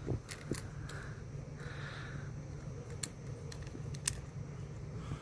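A few sharp clicks and soft rustles of wires and an electrical box being handled, over a low steady hum.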